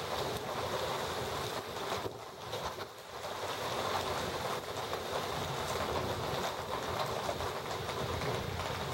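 Heavy rain pouring steadily, a dense even hiss with a brief lull about two to three seconds in.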